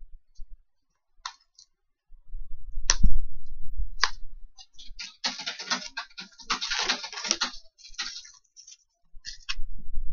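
Shrink-wrap plastic being picked at and pulled off a DVD case: a few sharp clicks of fingers on the plastic, then a few seconds of crinkling and crackling in the middle, with low bumps from handling the case.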